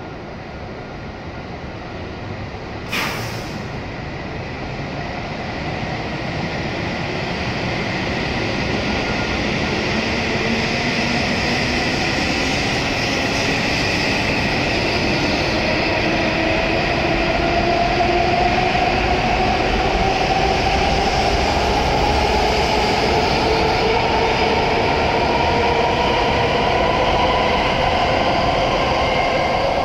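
Hokuriku Shinkansen bullet train pulling out of the station: a sharp click about three seconds in, then the traction motors whine with a slowly rising pitch as the train speeds up, growing louder.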